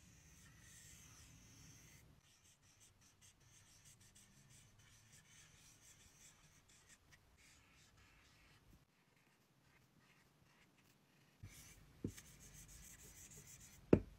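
Chisel-tip dry-wipe marker rubbing across a whiteboard in short lettering strokes. It is quiet for about two seconds in the middle, then the strokes return with a few sharp clicks near the end.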